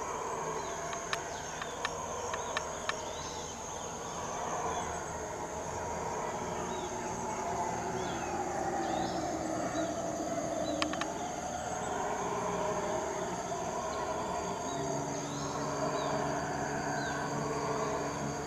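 A chorus of howler monkeys howling from the forest: a deep, wavering roar that swells and fades over several seconds. A steady high insect drone and scattered bird chirps run underneath, and a low steady hum joins near the end.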